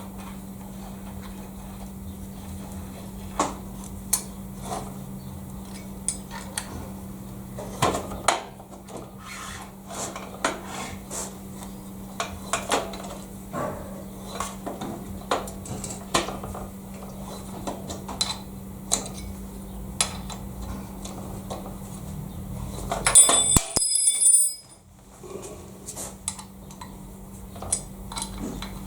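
Steel milling vice parts and hand tools being handled on a workbench: scattered light metallic clinks and knocks, with a louder ringing metal clatter about 23 seconds in. A steady low hum runs underneath.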